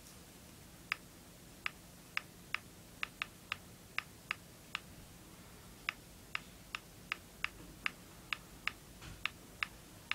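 iPod Touch on-screen keyboard clicking as text is typed: a run of short, sharp key clicks at an uneven pace, about two or three a second, with a pause of about a second midway.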